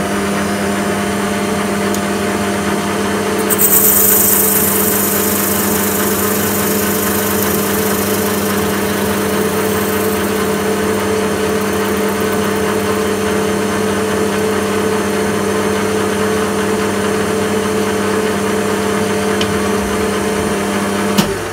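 Bernardo metal lathe running, its spindle and gearing giving a steady hum while the tool faces the end of an acrylic (Plexiglas) tube. A louder, brief hiss comes about four seconds in, and the lathe shuts off near the end.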